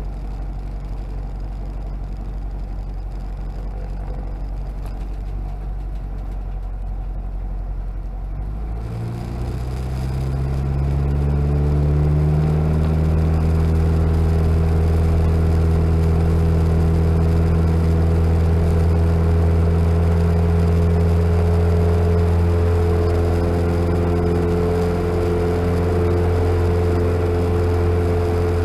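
Comco Ikarus C22 ultralight's engine and propeller running at low power, then opened up about nine seconds in, rising in pitch over a couple of seconds to a steady, louder full-power drone for the takeoff roll.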